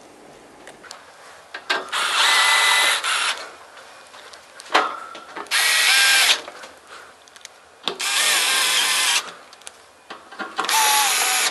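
Cordless drill/driver with a T25 Torx bit driving screws into a dehumidifier's metal cabinet, each screw snugged down in a short run. Four runs of about a second each, plus one brief blip, with pauses and small clicks between.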